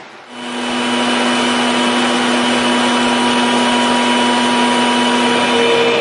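Universal milling machine running: a steady mechanical whine from its drive with a hiss of noise over it, coming in abruptly about a quarter second in. The pitch of the whine shifts near the end.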